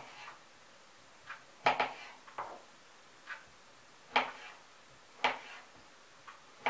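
Kitchen knife slicing a salted cucumber on a wooden cutting board: sharp knocks of the blade on the board, about one a second and unevenly spaced.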